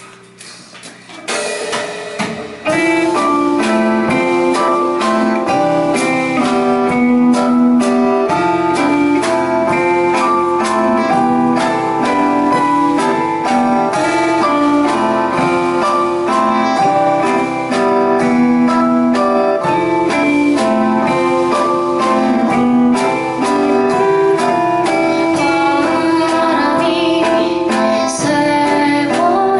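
Live band playing a soft-rock song intro on acoustic guitar, electric bass, drum kit and keyboard. It starts quietly and swells to the full band about two and a half seconds in, then keeps a steady beat.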